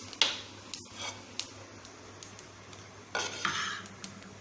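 Nonstick pan of dry-roasted peanuts taken off a gas stove and set down: scattered sharp clicks and knocks, then a short scraping rattle about three seconds in.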